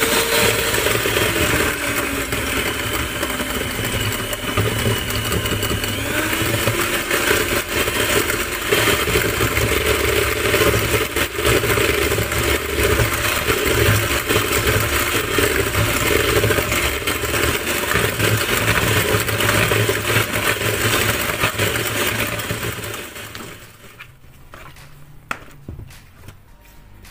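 Electric hand mixer running, its beaters whirring through chocolate cake batter in a plastic bowl, then shutting off a few seconds before the end.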